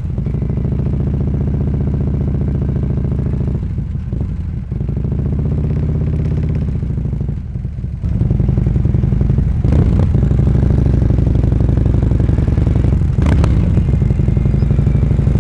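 Motorcycle engine running steadily at road speed, its pitch swelling up and back down briefly midway; it gets louder about eight seconds in.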